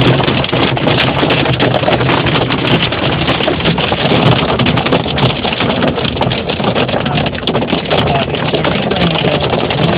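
Hailstones and rain pelting a car's roof and glass, a dense continuous patter of sharp hits, over the steady low hum of the car's idling engine.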